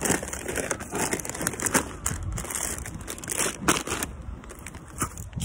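Plastic crinkling and rustling close to the microphone, in irregular crackles and scuffs, as plastic is handled.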